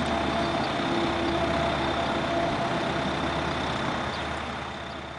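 A steady mechanical-sounding hum under a hiss, with a few unchanging tones, fading out near the end.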